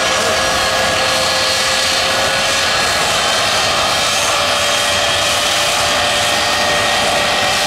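Jet dragsters' turbine engines running steadily at the starting line: a loud, constant rush with a steady high-pitched whine on top.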